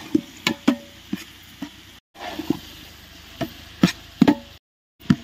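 Metal ladle clacking and scraping against a metal cooking pot while stirring frying onions and tomatoes, irregular sharp knocks, some with a short metallic ring, over a faint sizzle. The sound cuts out completely twice, briefly.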